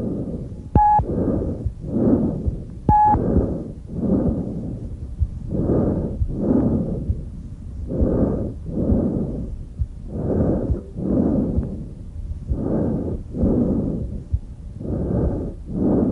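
Tracheal breath sounds heard by stethoscope over the extrathoracic trachea: loud, harsh, hollow rushes of air, an inspiration then a slightly longer expiration, about one breath every two seconds. These are normal airflow sounds over the trachea. Two short clicks with a brief tone come in the first three seconds.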